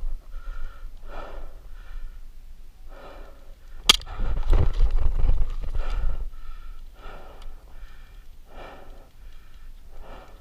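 A person breathing hard in short, regular breaths close to the microphone, with one sharp crack about four seconds in.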